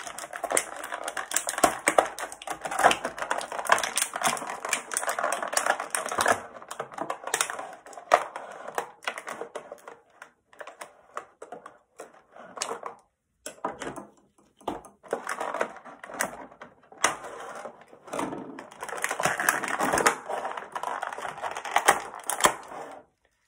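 Clear plastic blister tray crackling and clicking as an action figure is pried out of it, in spells with a few short pauses.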